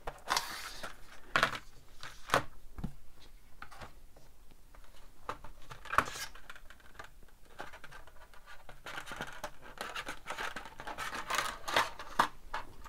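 Plastic blister pack being opened by hand, its clear plastic tray pried off the card backing: scattered crinkles and sharp clicks, with a longer stretch of dense crinkling near the end.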